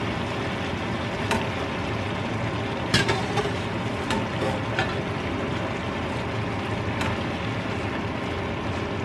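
Boiled mushrooms and onion frying in a pan, a steady sizzle with a few light clicks. A spatula stirs them near the end.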